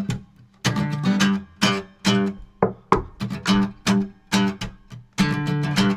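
Guitar strummed in a steady rhythm, about two to three strokes a second: the instrumental intro of a children's song before the singing starts.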